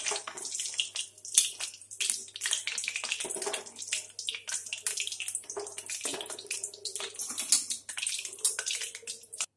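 Freshly fried potato bhujia crackling and sizzling in a steel mesh strainer as hot oil drains from it into the kadhai, a dense, irregular patter of small crackles, with now and then a light metal clink of the strainer against the pan.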